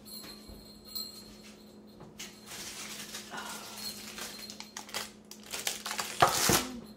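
A hot cake in a lined loaf pan being taken out of the oven with oven mitts: rustling of the pan's lining, light knocks and scrapes, and a louder clatter about six seconds in, over a steady low hum.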